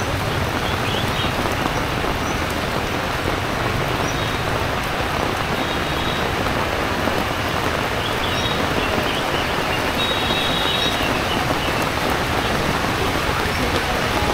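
Heavy rain falling steadily: a dense, even hiss of rain on surfaces, with faint short high chirps now and then.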